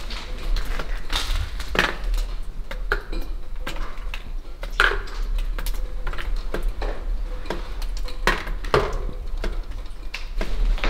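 Irregular light clicks and clinks of small hard objects, a few with a short ringing tail, echoing in a bare concrete cell block, over a steady low hum.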